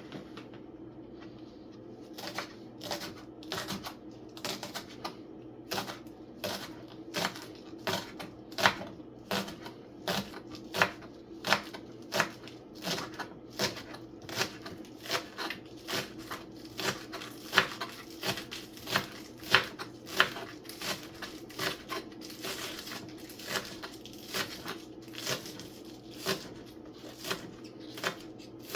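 Knife chopping seasoning herbs on a cutting board, a steady run of sharp cuts at about two a second.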